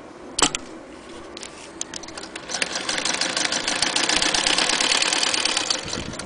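Vintage Frister & Rossmann sewing machine running fast and stitching, a rapid even clatter that starts about two and a half seconds in and eases off near the end. A single sharp click comes about half a second in.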